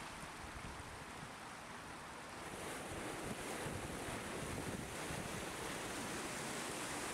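Rushing floodwater of the swollen Ebro, a steady wash of water that gets louder about two and a half seconds in, with wind buffeting the microphone.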